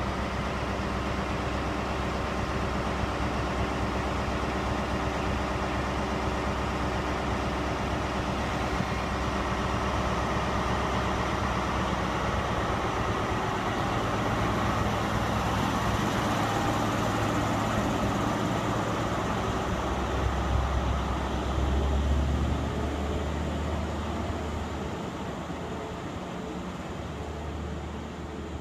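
Class 43 HST power car's MTU diesel engine running, then working harder as the train pulls out of the station: a deep engine note builds to its loudest about three-quarters of the way through, then fades as the train draws away.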